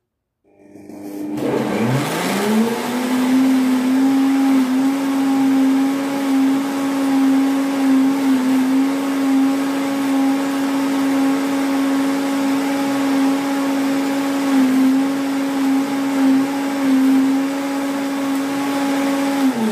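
Countertop blender blending berries and chia seeds: the motor spins up to a steady high hum within about two seconds, runs evenly, and is switched off near the end, winding down.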